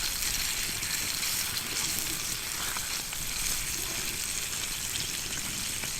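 Bacon sizzling steadily in a lot of hot oil in a small titanium pan over a campfire, shallow-frying almost like deep-frying.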